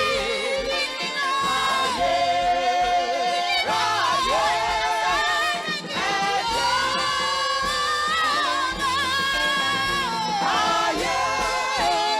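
Gospel singing with vibrato over a steady bass accompaniment, voices holding long wavering notes.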